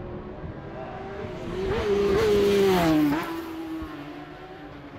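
Racing motorcycle passing close at speed: the engine note builds to its loudest about two seconds in, drops in pitch as it goes by, then fades away.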